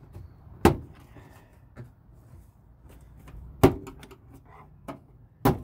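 Three sharp plastic knocks, with a few fainter clicks between them, as the 20-year-old door trim panel is worked loose from the door.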